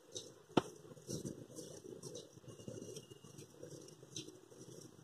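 Fingers rubbing and tossing ragi flour in a stainless steel bowl, a faint uneven rustling as salt water is worked into the flour, with one sharp click about half a second in.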